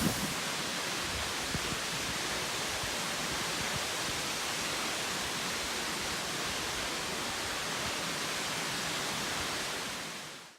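Fairy Falls waterfall: a steady rush of falling water that fades out near the end.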